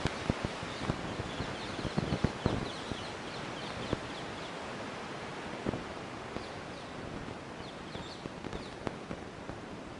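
Outdoor ambience: a steady background hiss with small birds chirping in quick high notes, mostly in the first three seconds and again near the end, and a few short rustles and knocks in the first couple of seconds.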